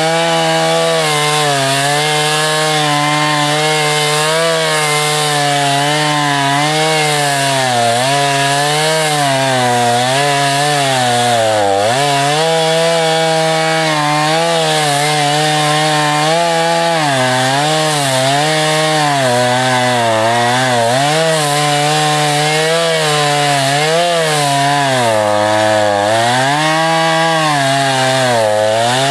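Husqvarna 440 two-stroke chainsaw at full throttle cutting through a thick log, its engine pitch sagging and recovering over and over as the chain loads up in the cut, with the deepest dips about twelve seconds in and again near the end.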